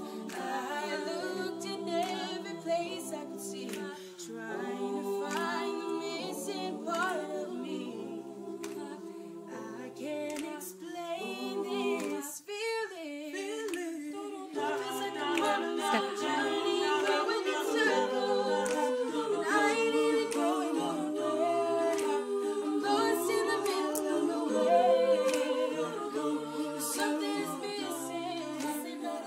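A mixed-voice a cappella group singing in close harmony: sustained chords over a sung bass line, with a lead voice on top. About halfway through the voices briefly thin out, then build back fuller.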